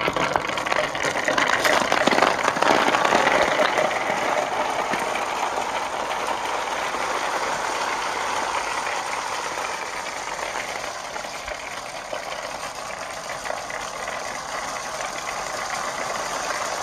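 Marbles rolling along a marble-run track, a continuous rattling rumble that is loudest in the first few seconds and then eases off a little.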